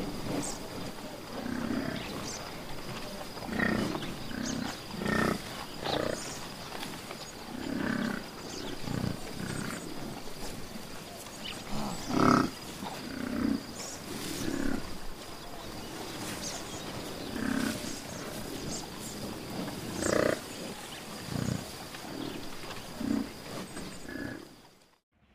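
African buffalo grunting and growling over and over, short low calls coming every second or two, the loudest about halfway through. A thin steady high tone runs underneath, and the sound drops out briefly near the end.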